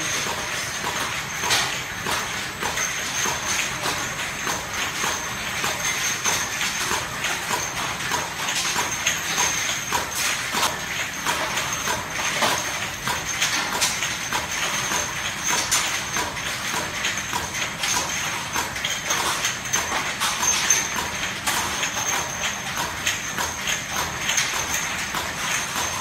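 Glass bottles clinking and knocking together in a dense irregular patter as a rotary turntable and conveyor feed them into a wrap-around bottle labeling machine, over the machine's steady running with a thin high whine.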